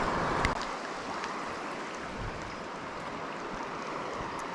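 Steady rush of flowing river water, with a single sharp click about half a second in.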